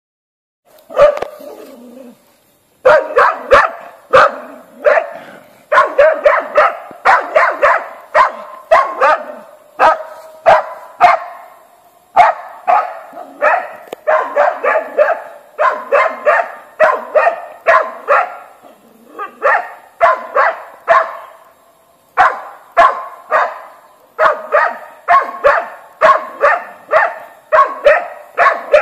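Hunting dog barking rapidly and over and over at a wild boar, holding it at bay. After a single bark about a second in and a short pause, the barks come in quick runs of several a second.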